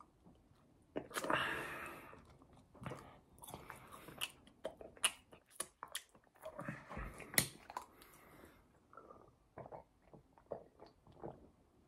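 A person biting and chewing a fast-food burger and fries close to the microphone. There is a noisy bite about a second in, then a run of sharp chewing clicks and smacks that grow softer and sparser near the end.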